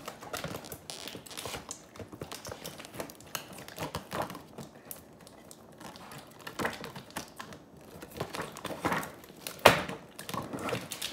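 Plastic toy packaging crinkling and rustling, with scattered small clicks and snips of scissors cutting it open. There is one sharper snap near the end.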